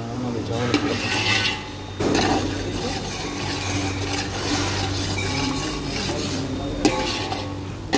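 Sliced onions frying in hot oil in an aluminium pot, a steady sizzle that grows louder about two seconds in, with a wooden spatula stirring and scraping against the pot.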